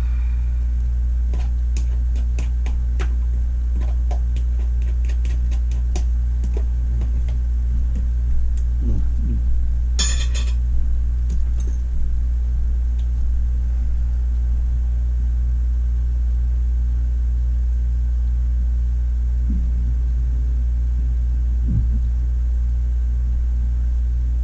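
Small clicks and clinks of food containers and utensils being handled, over a steady low electrical hum. The clicks come in a quick run over the first eight seconds, and there is a short hiss about ten seconds in.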